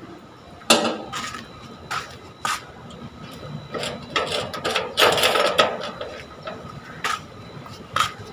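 A metal gate's sliding bolt latch and lock being worked by hand: a string of sharp clicks and clanks, with a busier rattle about four to five seconds in.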